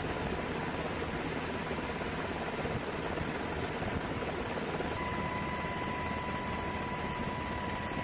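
Steady engine noise without a beat, with a thin steady high tone that drops out and comes back about five seconds in.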